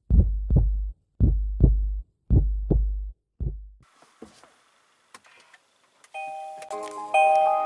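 A heartbeat-like sound effect of paired low thumps, about one pair a second, fading out after some four seconds. Faint clicks follow as the power button is pressed, and about six seconds in the Kia e-Niro's power-on chime starts: a short tune of bell-like notes.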